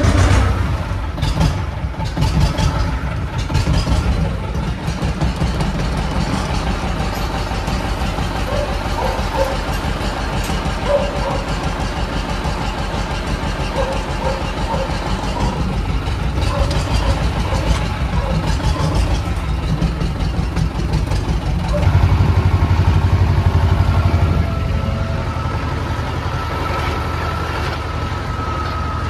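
Władimirec T-25 tractor's two-cylinder air-cooled diesel running steadily, rising in level for about three seconds near the end as it is given more throttle.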